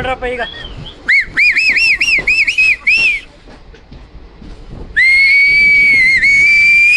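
A person whistling loudly: a quick run of about eight short whistles, each rising and falling in pitch, then after a pause one long held whistle that creeps up slightly in pitch and cuts off at the end.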